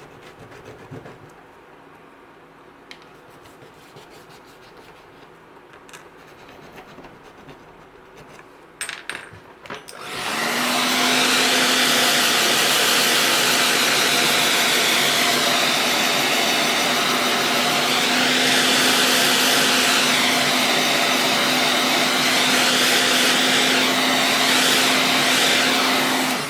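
Faint handling sounds at first, then about ten seconds in a heat gun switches on and blows air steadily for about sixteen seconds, a rushing sound over a constant motor hum, before cutting off. It is warming vinyl film to soften it over the plastic surface.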